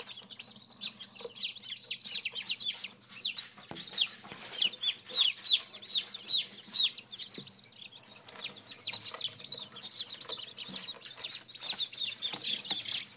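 A brood of baby chicks peeping continuously, many overlapping high, short peeps, each falling in pitch.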